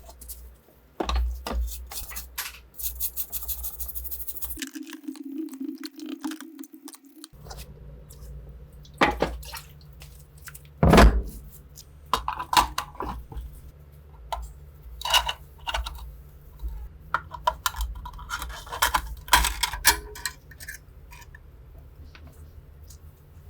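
Workshop handling sounds: a short hiss, a few seconds of steady low hum, then a run of sharp clicks and knocks of hard parts being handled and set down, the loudest knock about eleven seconds in.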